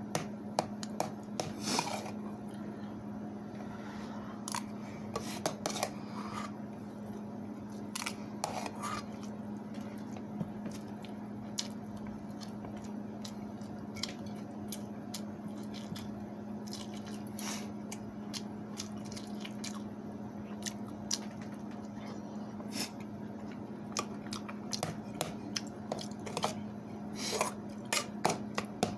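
A person eating rice and grilled eggplant: chewing and mouth sounds, with scattered short clicks and scrapes of a spoon and fingers against a metal rice pot and a steel sauce bowl. A steady low hum runs underneath.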